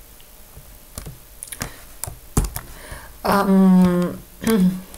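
A few separate computer keyboard keystrokes, the loudest about two and a half seconds in, as a document is pasted into a database editor. Then a drawn-out voiced hesitation sound from the person at the computer, twice.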